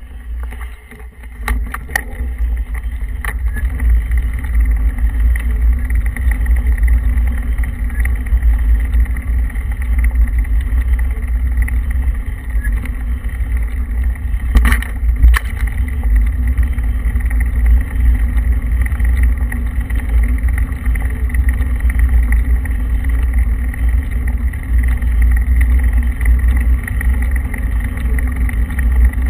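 Steady low rumble of wind buffeting the microphone and tyres rolling over a rough, unfinished road surface while moving along. Sharp knocks from bumps come about two seconds in and again about halfway through.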